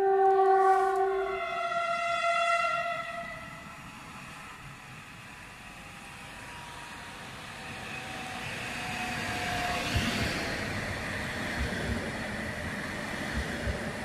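Croatian Railways passenger multiple unit sounding its two-tone horn, a lower note and a higher one overlapping for about two and a half seconds. Then the train runs in along the platform with a steadily rising rumble, and its wheels click over rail joints as it passes near the end.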